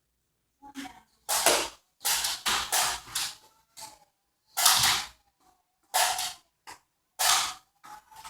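Nerf Strife flywheel dart blaster firing foam darts in a quick, uneven string of about eight shots, with a faint motor whine between shots.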